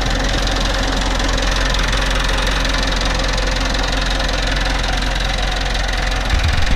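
Ursus 4512 tractor's diesel engine running steadily as it pulls a plough through the field. Near the end, electronic dance music cuts in with a heavy beat.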